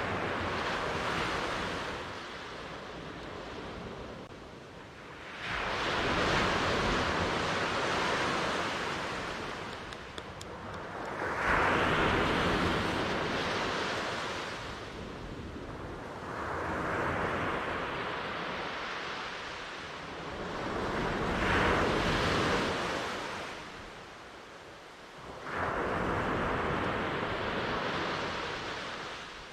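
Ocean surf: waves breaking in repeated surges that swell and fade about every four to five seconds.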